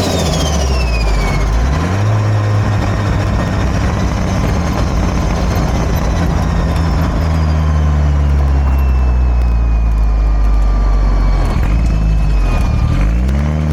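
Turbocharged engine of a 2004 Mitsubishi Lancer Evolution VIII MR fitted with a Garrett turbo, running under way. Its revs drop just after the start as a high whistle falls away, hold steady through the middle, then dip and climb again near the end.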